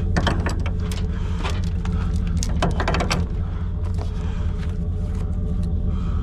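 A vehicle engine running with a steady low rumble, with scattered clicks and rattles over it.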